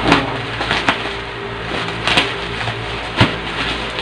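Bubble-wrap packaging crinkling as it is cut open with scissors and pulled apart. There are four sharp crackles about a second apart over a steady low hum, and the last one is the loudest.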